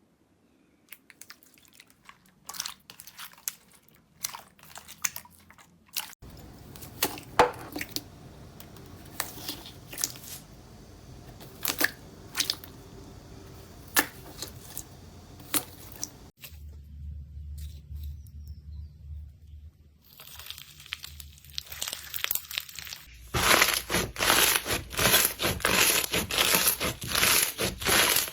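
Crunchy slime being squeezed and poked by hand, giving irregular crackles and pops across several short clips. The crackling turns dense and louder near the end.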